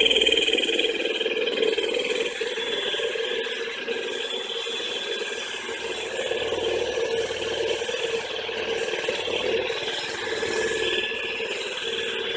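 Cordless drill spinning the basket of a plastic salad spinner: a steady motor whine, a little louder for the first couple of seconds, then settling.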